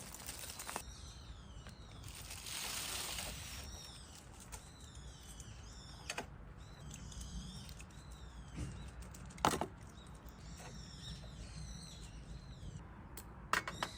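Small birds chirping and singing repeatedly in quick high notes, with a brief rustle a couple of seconds in and a few sharp knocks, one clear one near the middle and two near the end.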